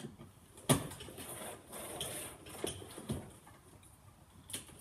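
Scattered clicks and rustling as stiff electrical wires are handled and worked into a breaker panel; the loudest is a sharp click under a second in.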